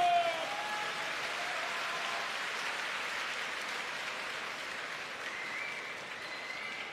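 Sumo arena crowd applauding steadily after a bout, slowly easing off. In the first half second the tail of a long held call, sliding down in pitch, dies away.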